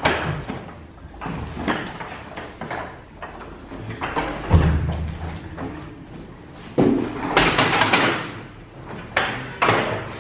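A door being opened and shut, with a run of short knocks and a heavy low thud about four and a half seconds in.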